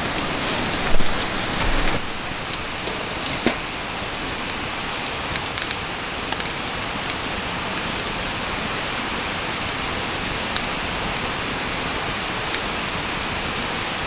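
Firewood burning in a campfire stand: scattered crackles and pops over a steady hiss, with a knock about a second in.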